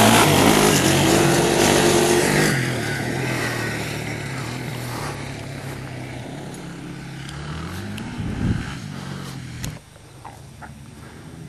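Yamaha sport quad's single-cylinder engine running hard as it passes close by, then fading as it rides away down the track. A fainter engine sound carries on, with a brief louder rush of noise about eight seconds in.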